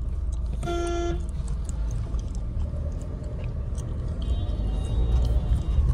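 Mahindra Scorpio SUV driving, a steady low road and engine rumble heard from inside the cabin, with a short car horn toot about a second in.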